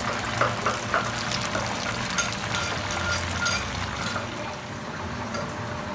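Chicken wings deep-frying in a pan of hot oil: a steady sizzle with fine crackling.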